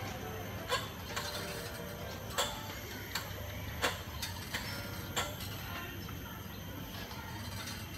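Bungee trampoline rig clicking and creaking as the harnessed jumper bounces up and down on its cords: a string of sharp clicks, most of them in the first five seconds, over a steady low hum.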